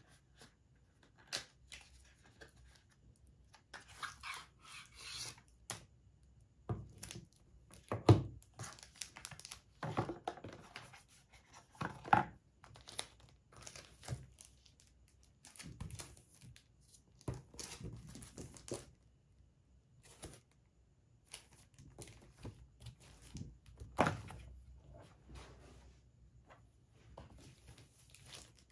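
Plastic packaging crinkling and rustling as merchandise is unwrapped and handled, with irregular knocks of cardboard boxes and items on a tabletop; the loudest knocks come about eight seconds in and again near twenty-four seconds.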